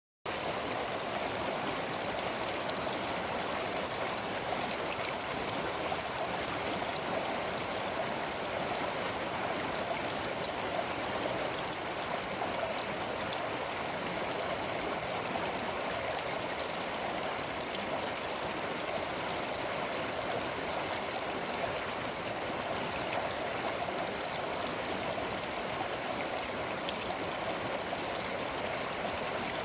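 A mountain river flowing over rocks: a steady, even rushing of water.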